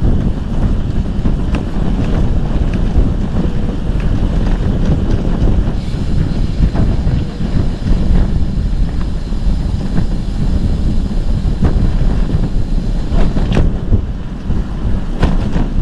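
Heavy wind buffeting on the microphone of a camera on a moving bicycle: a loud, steady rumble, broken by a few sharp clicks, the clearest near the end.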